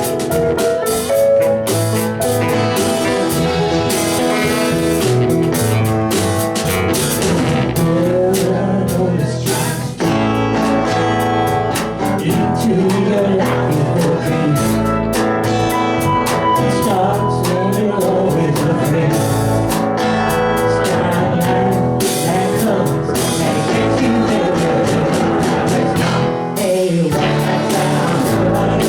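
Live band playing a blues-rock song with guitar and drum kit.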